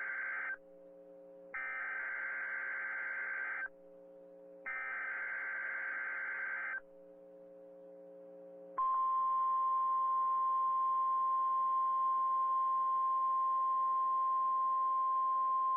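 NOAA Weather Radio Emergency Alert System opening: three SAME digital header bursts, each a harsh data screech about two seconds long with a second's pause between, the first already under way. About nine seconds in, the steady 1050 Hz warning alarm tone starts and holds. It is the attention signal ahead of a broadcast tornado watch.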